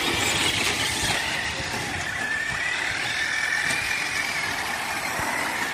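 Radio-controlled cars running on a dirt track, their motors giving a high whine that rises and falls in pitch as they speed up and slow down.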